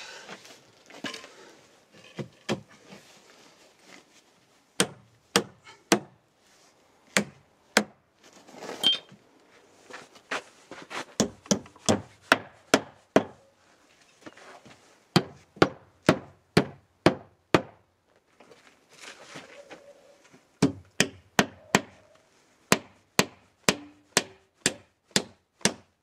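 Hammer driving nails through an OSB board into round wooden blocks. The sharp strikes come in runs of about three a second, with short pauses between nails.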